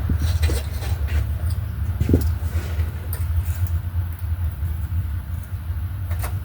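Steady low rumble, with scattered light clicks and a single knock about two seconds in.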